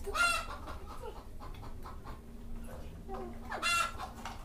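Domestic chicken giving two short, high-pitched calls, one at the start and one near the end.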